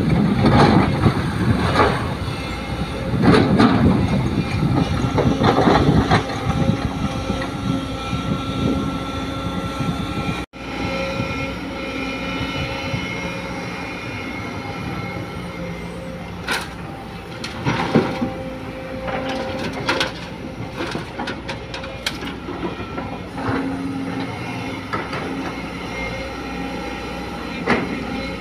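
Sumitomo hydraulic excavator at work: its diesel engine runs under load while the bucket scrapes and digs into the soil, in loud, irregular surges for the first ten seconds. After a sudden break the engine runs more steadily, with a few sharp knocks from the machine.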